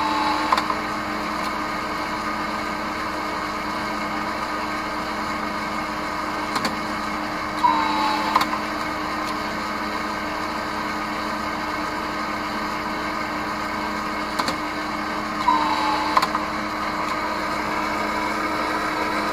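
Ampulmatic-10 ampule filling and sealing machine running with a steady hum. Three times, about eight seconds apart, it gives a brief whine and a few clicks as it cycles.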